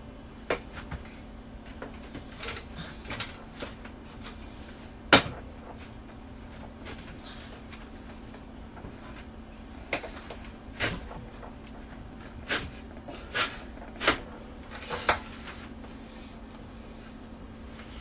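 Hand-operated French fry cutter pressing potatoes through its blade grid: a series of separate sharp clacks and knocks, the loudest about five seconds in, with several more close together in the second half.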